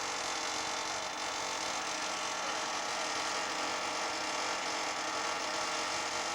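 Fox model aircraft glow engine running steadily on a test block, a continuous buzzing whine.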